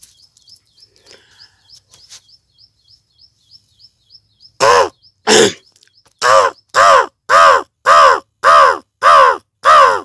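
A man imitating a crow by voice: about nine loud, harsh caws starting about four and a half seconds in, the first two spaced apart and then a steady run of about two a second. Before them, faint fast high chirping sounds in the background.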